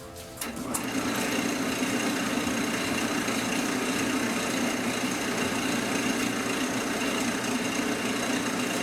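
Wood lathe running steadily as it spins a painted canvas, a steady machine sound with a faint high whine; it comes in about half a second in.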